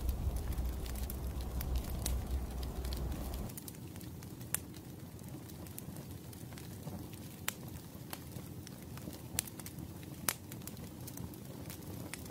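Wood fire crackling, with scattered sharp pops. A low rumble underneath cuts off abruptly about three and a half seconds in.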